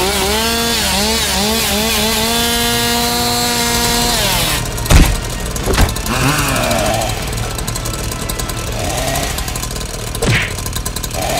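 Chainsaw revving: the engine note climbs, surges up and down a few times, then holds at high revs and cuts off about four seconds in. A few loud sharp knocks follow, with short warbling sounds between them.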